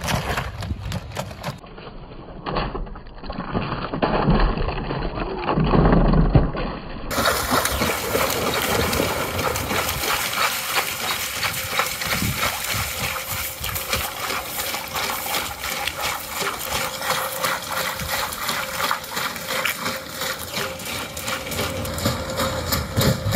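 Ghost Robotics Vision 60 quadruped robot walking through shallow water, its feet splashing in a busy, uneven patter.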